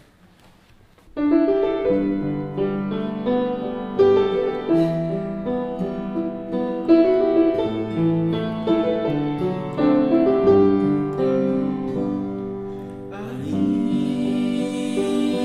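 Piano playing a slow ballad introduction, starting about a second in with a melody over held chords. Near the end a brighter second layer joins the piano.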